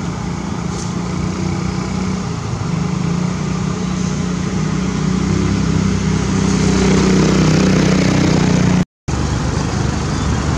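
A motor vehicle's engine running with a steady low hum, growing louder about six seconds in, then cutting out for a moment near the end.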